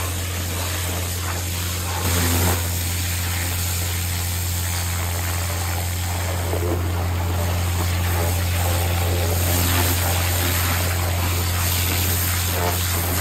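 Pressure washer running with a steady low drone while its lance jet hisses and splashes into wet soil and mud, blasting out a hole. There is a brief louder surge about two seconds in.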